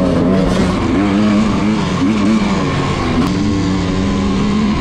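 Onboard sound of a GasGas two-stroke dirt bike engine as it is ridden. The note rises and falls as the throttle is opened and closed, with wind rushing over the helmet-camera microphone.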